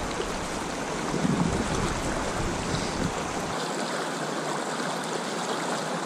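Shallow river riffle running over a rocky bed: a steady rush of flowing water.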